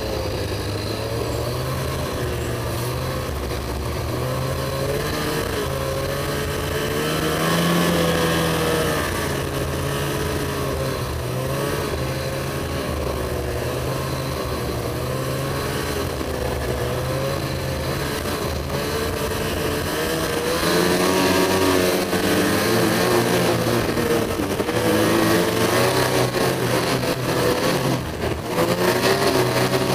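Ski-Doo Summit snowmobile's two-stroke engine running under way, its pitch wavering up and down with the throttle. It gets louder briefly about a quarter of the way in and again from about two-thirds in, over a steady hiss.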